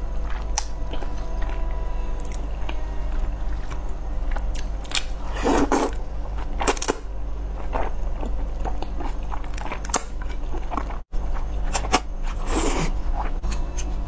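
Close-miked eating of thick spicy stir-fried rice noodles: wet slurping and chewing with a few louder slurps, the loudest about five and a half seconds in and again near the end. The sound cuts out for an instant about eleven seconds in.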